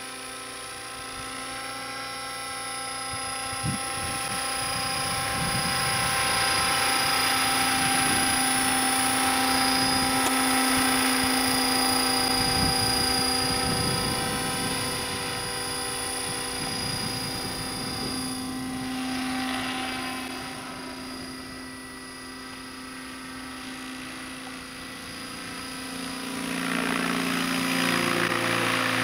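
Bell 206 JetRanger-type helicopter in flight: a steady high turbine whine over the rotor noise. It grows louder over the first several seconds, fades somewhat past the middle, and swells again near the end as it passes close overhead.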